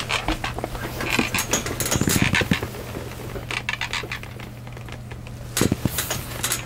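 Soft rustling of a duvet and clothing with scattered light taps and clicks, over a steady low hum. The rustle is busiest in the first half, with a brief louder flurry near the end.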